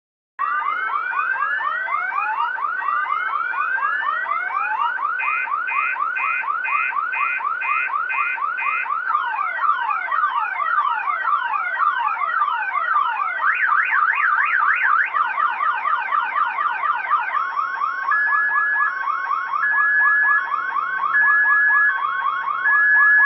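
Electronic multi-tone car-alarm siren stepping through its patterns: repeated rising whoops, a fast pulsing beep, falling sweeps, a quick up-and-down warble, then alternating high and low beeps near the end. It cuts off suddenly.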